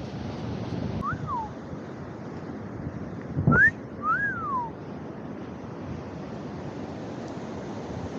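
Ocean surf washing on the beach with wind on the microphone. Three short whistled notes slide up and down over it about one, three and a half and four seconds in; the second is the loudest and comes with a sharp bump.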